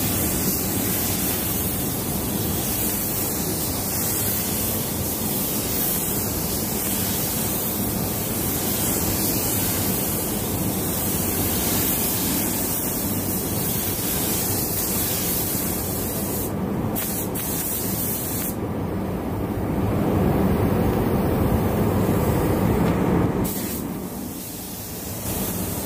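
Steady hiss of a copy DeVilbiss GTI Pro spray gun spraying clear coat at about 2.7–2.8 bar of air pressure. The hiss drops away briefly near the end, then comes back.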